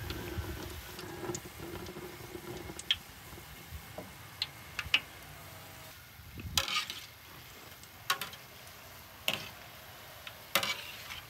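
A cooking utensil stirring and scraping against cookware: scattered light clicks and taps, then four louder scraping strokes about a second and a half apart in the second half.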